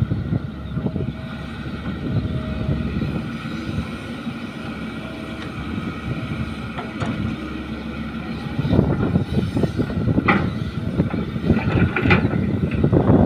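Caterpillar hydraulic excavator's diesel engine running as the machine works, swinging a load over to a dump truck and back to dig. About nine seconds in the sound gets louder and rougher, with two sharp metallic clanks near the end as the bucket goes back into the dirt.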